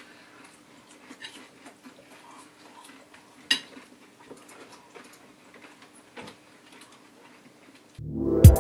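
Faint scattered clicks and crunches of people eating nachos by hand from a plate, over a low steady hum, with one sharper click about three and a half seconds in. Loud music cuts in with a rising sweep near the end.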